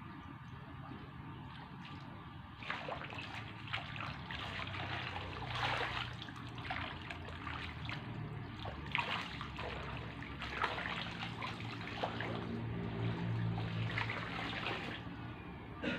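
Shallow pond water splashing and trickling in repeated short bursts as hands scoop floating azolla out of it and the water drains back.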